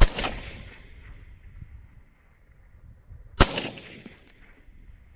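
Two rifle shots from a semi-automatic AR-platform rifle, about three and a half seconds apart, in a timed rapid five-shot string at long range. Each shot trails off in an echo.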